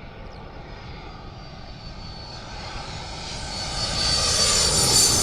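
Jet aircraft engines running, growing steadily louder as the plane approaches, with a high whine over the rushing noise.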